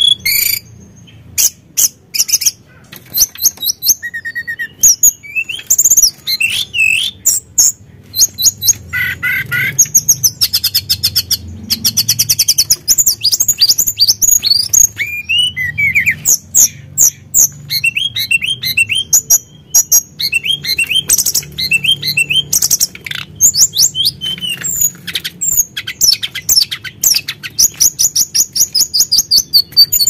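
Caged blue flycatcher (tledekan gunung) singing a long, lively song of rapid trills, quick rising and falling whistles and chattering notes, with only short pauses between phrases.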